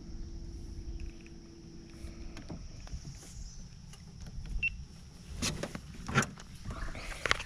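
Low rumble of handling noise, broken by several sharp knocks and clatters. The three loudest come in the second half, the last near the end.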